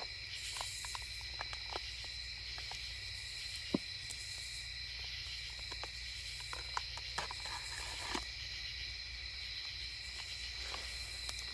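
Night chorus of crickets, a steady high trilling that holds throughout, with scattered light clicks and taps over it and one sharper click about four seconds in.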